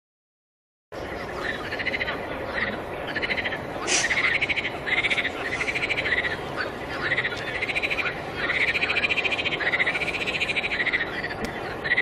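Silence, then about a second in a chorus of animal calls starts abruptly: short pulsed calls, each rising and falling in pitch, repeating one after another over a steady hiss.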